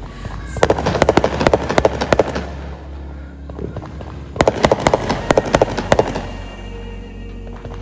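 Fireworks crackling: two rapid flurries of many sharp pops, one starting about half a second in and the other about four and a half seconds in, each lasting about two seconds.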